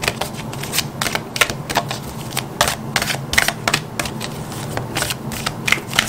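A deck of oracle cards being shuffled by hand: an uneven run of quick card clicks and flaps, several a second.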